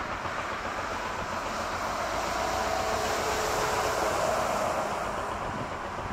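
Twin-engine jet airliner's engines on landing approach: a rushing noise that swells to a peak about four seconds in and eases off, with a faint steady whine in it.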